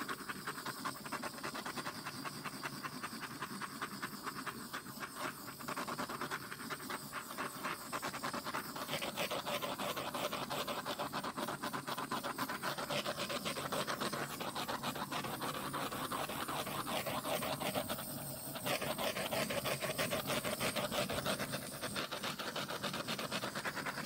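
Handheld torch flame hissing steadily with a fast flutter as it is passed over wet acrylic pour paint, heating the surface to pop the air bubbles.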